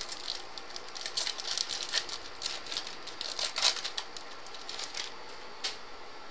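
Foil wrapper of a 2014 Topps Prime football card pack crinkling and tearing as it is opened by hand, with the cards being handled: a run of irregular crackles and clicks that stops a little before the end.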